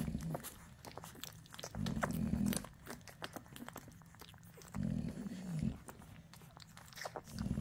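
Newborn American Bully puppies suckling, with many small wet clicks and smacks. A low sound of under a second comes three times, about every two and a half seconds.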